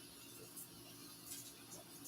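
Near silence: a faint steady hum and hiss, with a couple of soft ticks.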